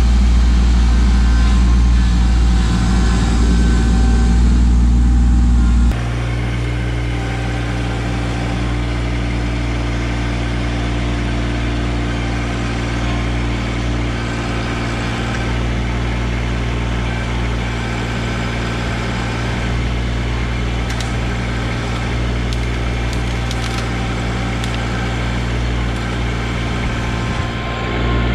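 Kubota LX2610 compact tractor's three-cylinder diesel engine running steadily while it works a grapple loader. The sound gets a little quieter and thinner about six seconds in, and a few faint ticks come through in the second half.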